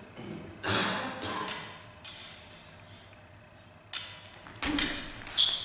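Smallswords striking and sliding against each other in a choreographed stage fight: about seven sharp metallic clicks and clashes, several of them ringing briefly. One strike about four and a half seconds in carries a heavier low thump.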